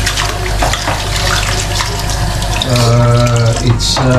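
Tap water running into a kitchen sink while raw chicken pieces are rinsed and handled under it, the stream splashing steadily.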